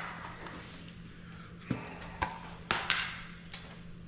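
A few light, sharp clicks and taps, about five of them scattered through the second half, over a low steady hum.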